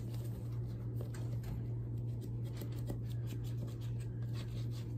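Disinfectant wipe rubbing over a plastic GPS monitor unit, with many light scratchy handling sounds from gloved hands, over a steady low hum.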